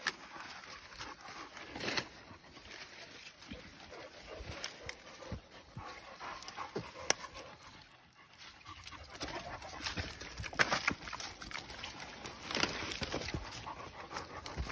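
Large mastiff dogs panting and rustling through forest undergrowth, with a few scattered sharp cracks of brush.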